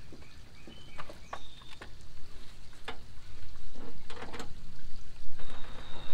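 Scattered light clicks and knocks of hands working on parts in a pickup's engine bay, over a low outdoor rumble, with high bird chirps and a brief high trill near the end.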